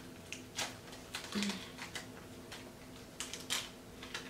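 Small plastic candy packet crinkling and crackling in the fingers as it is worked open, a scatter of short sharp crackles with the loudest about three and a half seconds in.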